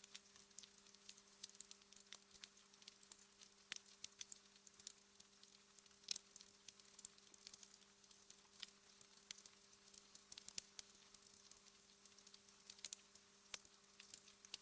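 Wood fire in a fireplace crackling: quick irregular pops and snaps over a faint hiss, with one louder snap about six seconds in. A faint steady hum runs underneath.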